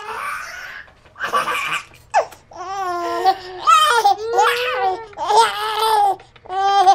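A baby laughing hard in repeated bursts. The first couple of seconds are breathy, and then come high-pitched, gleeful laughs.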